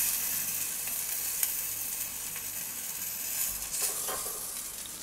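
Hot bacon-wrapped meatballs and their dripping fat sizzling on the still-hot wire grate of an electric table grill as they are lifted off with metal tongs, with a few light clicks. The sizzle sets in sharply and fades towards the end.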